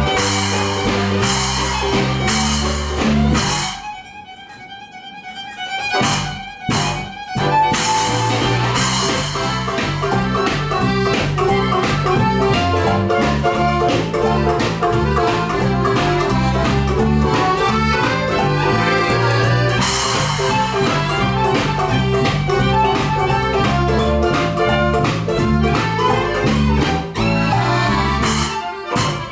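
Live band playing music with a steady beat. About four seconds in the band drops out, leaving a few sparse notes, and the full band comes back in after about three seconds.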